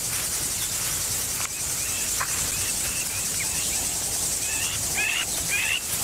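Steady high-pitched chorus of crickets or similar insects in grassland, with a few short chirps in the second half.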